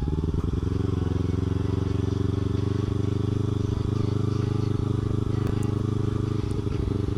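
Kawasaki Ninja 300's parallel-twin engine running at a steady speed while the bike is ridden, its note holding level throughout.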